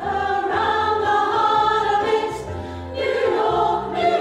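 A women's choir singing together in harmony, holding long notes, with a short softer stretch about two and a half seconds in.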